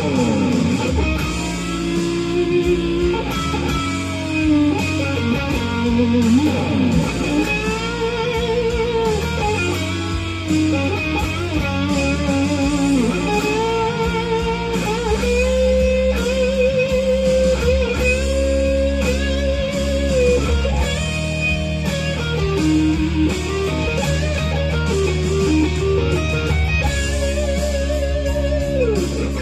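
Overdriven electric guitar playing a lead solo with bends and wide vibrato, through a Mooer GE300's JCM800 amp model, over a rock backing track.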